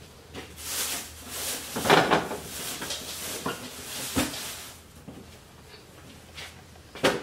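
Plastic shopping bags rustling as they are rummaged through, with a few knocks mixed in, then a single sharp knock near the end as a boxed item is picked out.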